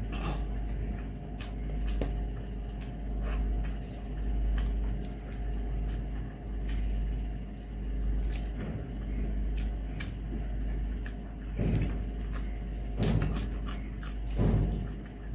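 Close-up eating sounds from someone eating rice and curry by hand: wet chewing clicks and lip smacks scattered throughout, with a few louder noises of fingers working the rice on a metal plate near the end. A steady low hum runs underneath.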